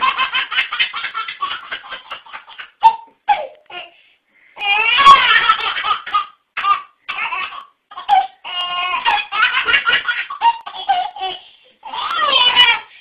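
Baby belly-laughing in long runs of rapid giggles, with a short pause about four seconds in.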